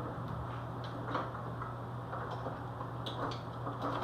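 A few light clicks and taps of kitchen tongs working battered cauliflower pieces in a bowl, scattered and irregular, over a steady low hum.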